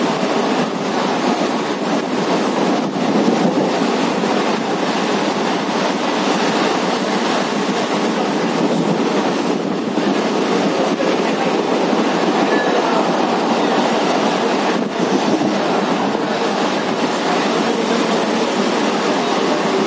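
Electric suburban local train running at speed, heard from inside the coach: a steady noise of wheels on rail mixed with wind, with no clear rhythm.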